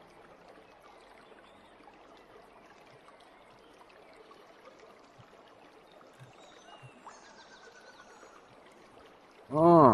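Faint, steady outdoor background noise with a few soft knocks. Near the end comes a short, loud vocal exclamation from a man, his voice rising and then falling in pitch.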